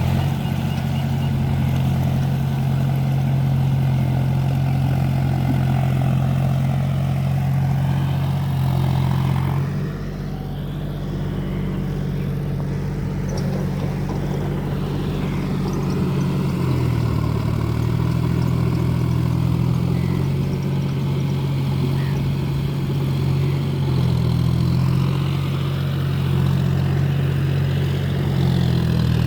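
John Deere four-wheel-drive tractor's diesel engine running steadily. It dips in level about a third of the way in, and its pitch shifts a little past halfway.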